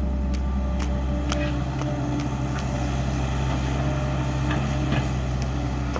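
A vehicle engine running steadily as a low, even drone, with scattered short clicks and knocks.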